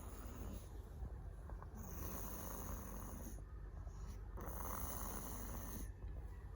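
A sleeper snoring slowly and regularly, one long snore breath about every two and a half seconds.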